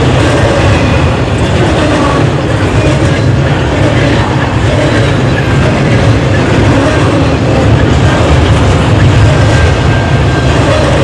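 CN double-stack container train's well cars rolling past, a loud steady rumble and clatter of wheels on rail, with heavy bass from the audio being boosted through an equalizer.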